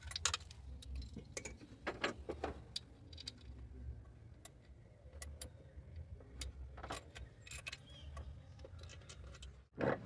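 12 mm socket wrench loosening intake manifold nuts: scattered, irregular metallic clicks and clinks over a faint low hum.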